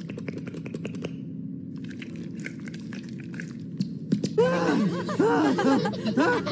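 Several cartoon voices laughing and giggling together, starting about four seconds in. Before that there is a low steady hum with scattered small clicks.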